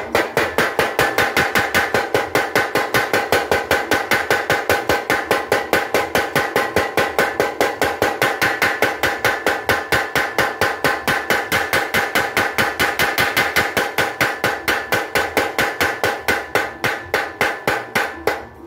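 Motor-driven mechanical power hammer striking red-hot steel held in tongs, forging a sickle blade: a rapid, even hammering of about five blows a second with a metallic ring.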